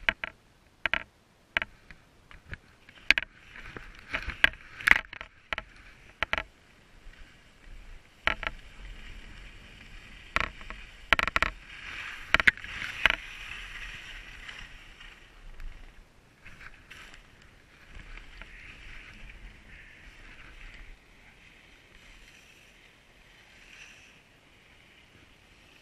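Skis scraping over hard-packed snow. A run of sharp clicks and knocks in the first six seconds gives way to a steadier scraping hiss with a low rumble from about eight seconds in, which dies down after about twenty seconds.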